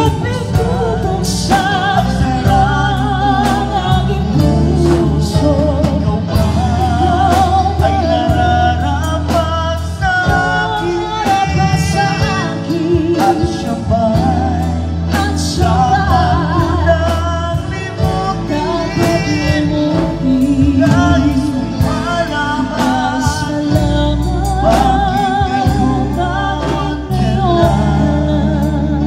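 Live band performance of a sung ballad: a male and a female vocalist singing into microphones over electric guitar, bass and drums.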